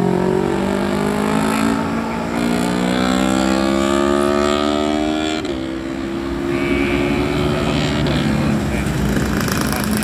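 Diesel bus engine accelerating away, its pitch rising steadily for about five seconds, then dropping suddenly at a gear change and running on at a steady pitch.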